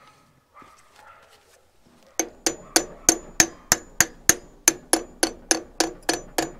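Hammer tapping repeatedly on a trailer's metal wheel hub, about three sharp metallic strikes a second with a short ring after each, starting about two seconds in after a few faint knocks.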